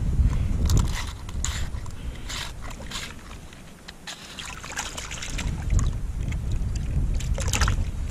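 Wind rumbling and buffeting on the microphone, heaviest at the start and again in the last few seconds. Scattered short clicks and rustles of handling run through it.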